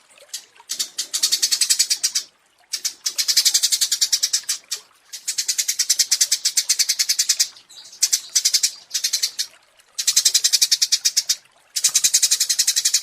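Small songbird giving rapid, high-pitched trills, each a burst of about one to two seconds of quick even notes, repeated about six times with short pauses between.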